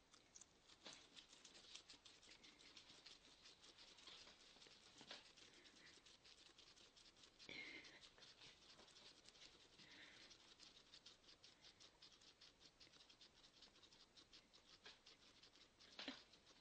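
Two guinea pigs chewing lettuce: faint, rapid crunching made of many small clicks, several a second.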